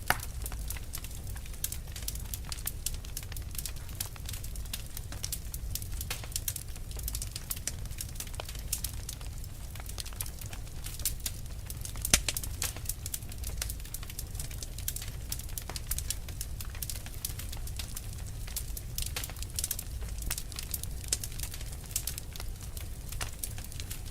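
A wood fire burning with constant irregular crackles and small pops over a low steady rumble of flame, one pop louder than the rest about halfway through.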